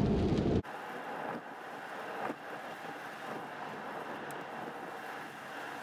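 Road noise inside a Tesla's cabin on a wet road in the rain: a steady tyre hiss. A louder low rumble cuts off abruptly within the first second.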